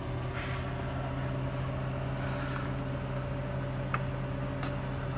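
A steady low mechanical hum, with two faint light clicks near the end.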